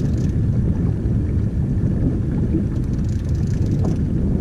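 Wind buffeting the microphone on an open boat: a steady, loud low rumble, with faint light ticks above it.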